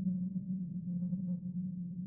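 Soft wind sound effect: a steady low moaning hum that wavers slightly, with no hiss or gusts.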